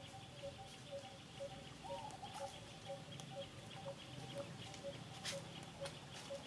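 Outdoor ambience: a mid-pitched note repeating evenly about twice a second over a steady high hum, with scattered light clicks and rustles. A short rising-and-falling call comes about two seconds in.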